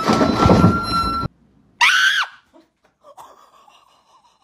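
A steady air horn blast over loud clatter and yelling, cut off about a second in, followed by a short, shrill scream that rises and falls.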